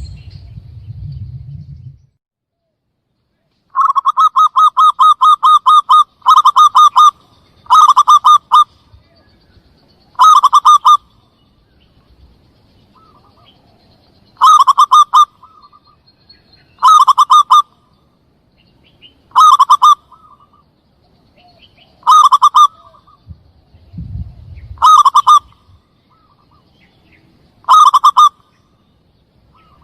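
Zebra dove (perkutut) calls used as a hunting lure: a long run of rapid cooing notes from about four seconds in, then short loud bursts of rapid notes roughly every two and a half seconds. A low rumble is heard at the start.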